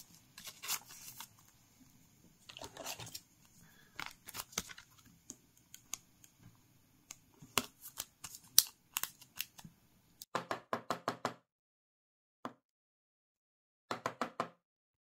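A Pokémon card handled into a soft plastic penny sleeve and a rigid plastic top loader: light crinkling of the sleeve with scattered small clicks and taps. About ten seconds in, and again near the end, a quick run of rapid scrapes as the card slides against the plastic.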